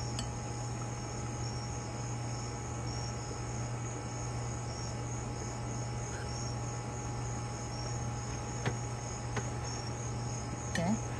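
Crickets chirping in a steady, evenly pulsed high chorus. A couple of faint clicks from a metal serving spoon in a bowl of rice come about nine seconds in.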